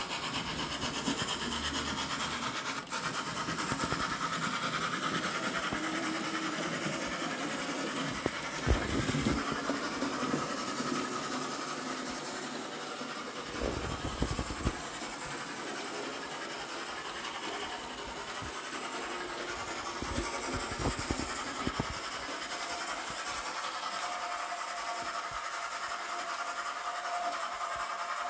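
Märklin BR89 model steam tank locomotive running on the layout track: a steady whirring, rubbing motor-and-wheel noise. A few dull knocks and bumps come in about a third of the way in, near the middle and again later.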